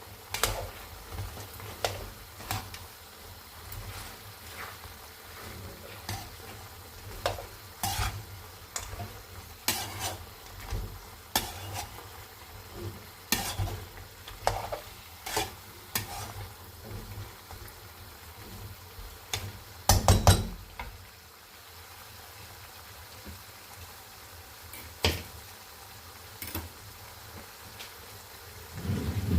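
Chicken pieces with crushed ginger and garlic sizzling in hot oil in a wok, while a utensil stirs and scrapes against the pan with a knock every second or so. A louder clatter comes about two-thirds of the way through, and after it the stirring knocks are sparse over the steady sizzle.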